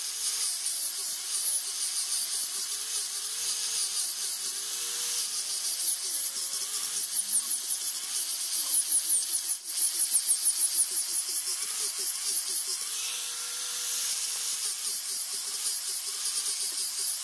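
Makita angle grinder with a sanding pad running at high speed and sanding a wooden knife handle. It makes a continuous high whine whose lower tone wavers as the pad is pressed on and eased off the wood.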